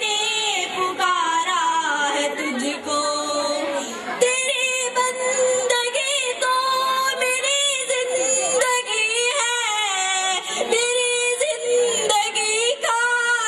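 A female voice singing long, drawn-out notes that waver and glide in pitch, with musical accompaniment.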